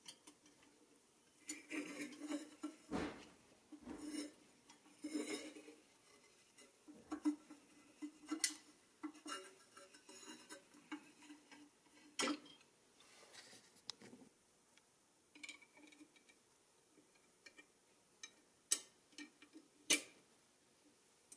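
Small pressed-steel toy parts being handled and pressed together with a small screw clamp: light metallic clicks, taps and scrapes of a steel pin and bracket, with a few sharper clicks, two of them near the end.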